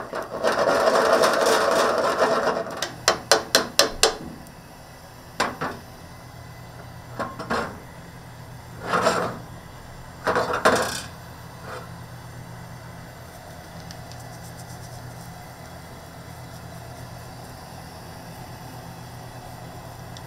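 Kitchen cooking noises: a loud rushing noise, then a fast run of about eight sharp taps of metal utensils on cookware, then scattered knocks and clatters. A steady low hum, like a range-hood fan, runs under it and is all that is left in the last several seconds.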